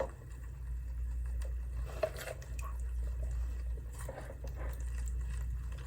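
A spoon scraping and clicking as a wet black bean, corn and salsa mixture is spooned onto a tortilla, with soft squishy dollops and a few light clicks over a steady low hum.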